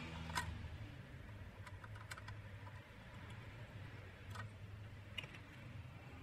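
Light clicks and ticks of a screwdriver working a screw in the scale's base, with one sharper click about half a second in and a few scattered ticks after, over a low steady hum.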